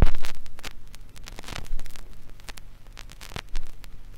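Stylus running in the lead-in groove of a vinyl LP before the first track: surface crackle and hiss over a steady mains hum, with a loud pop at the start and a few more pops spaced about a second and a half apart.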